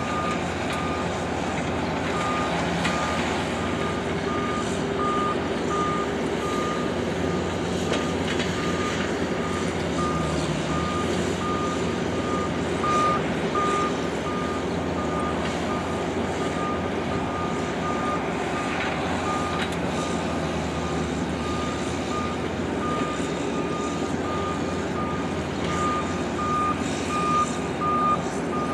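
John Deere skid steer's diesel engine running as it works fill dirt, with a backup alarm beeping at an even pace over it.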